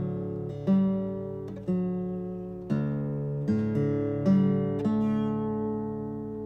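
Background music: acoustic guitar picking a slow melody, each note struck about once a second and left ringing, the last notes fading out slowly near the end.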